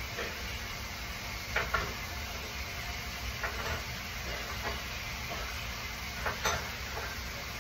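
Scattered light clinks and knocks of kitchen items being handled during cleaning, over a steady hiss.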